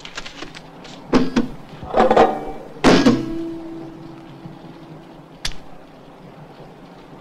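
Three loud knocks or bangs about a second apart, the last followed by a short ringing tone, then a single sharp click a couple of seconds later.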